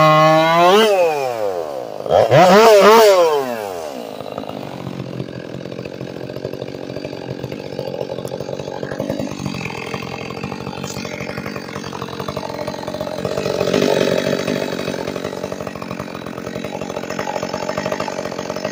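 Woods-ported Stihl MS400C two-stroke chainsaw finishing a cut at full throttle. Its pitch rises and falls as the chain comes out of the wood, it revs up and back down once more about two to three seconds in, then it idles steadily, much quieter.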